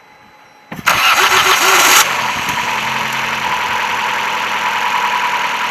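Opel Astra H's 1.6 Twin Port (Z16XEP) four-cylinder petrol engine started: the starter cranks for about a second, then the engine catches and settles into a steady idle. It runs with no knock, its intake manifold freshly repaired.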